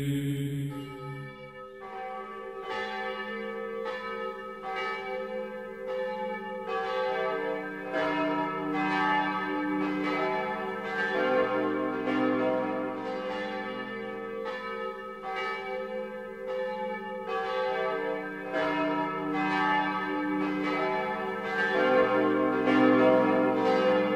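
Church bells pealing: several bells struck one after another in quick succession, their ringing overlapping. The peal starts about two seconds in.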